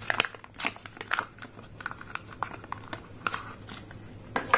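Clear plastic blister pack of an ink cartridge crinkling and crackling as it is peeled open by hand, in short irregular crackles with a few louder snaps.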